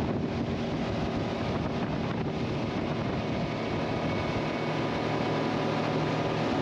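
Suzuki four-stroke outboard running steadily at planing speed, an even engine drone mixed with the rush of water and wind buffeting the microphone.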